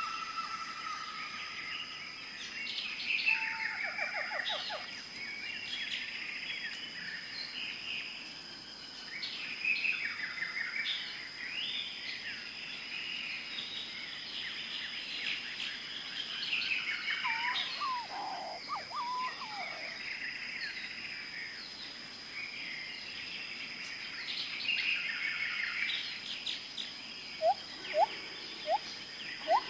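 Several birds chirping and trilling in overlapping bursts, with a few lower, sliding calls among them and a steady high-pitched tone underneath.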